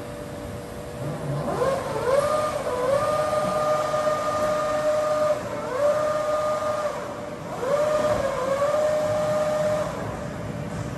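Scharmann Heavycut 3.3 floor-type CNC boring machine's drives whining through a series of powered moves over a steady machine hum: about five times the pitch rises, holds level for a second or two, then drops away as the move stops.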